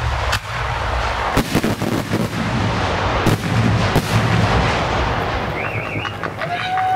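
The finale of a professional fireworks display: aerial shells and cakes bursting in quick succession, with loud sharp bangs over continuous crackling and a low rumble. The bursts thin out near the end.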